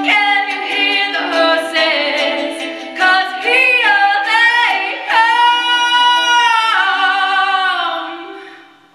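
A woman singing with a ukulele strummed along, the final phrase of a song: a long held note about five seconds in, after which the singing and strumming die away near the end.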